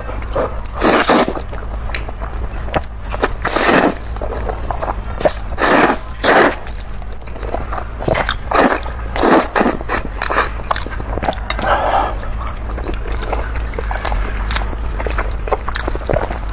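Instant noodles being slurped and chewed close to a clip-on microphone: wet sucking and chewing noises in loud bursts every second or two, thinning out in the second half, over a steady low hum.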